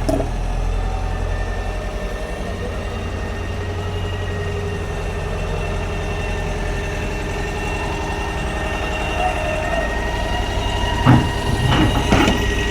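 Heavy diesel engine of construction machinery running steadily with a deep rumble. Near the end, a few sharp knocks sound over it.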